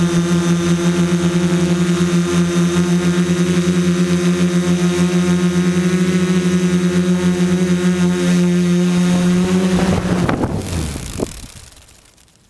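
Quadcopter's electric motors and propellers droning steadily at one pitch as it descends on auto-land. About ten seconds in, after touchdown, the pitch falls and the motors spin down, with a short knock just after.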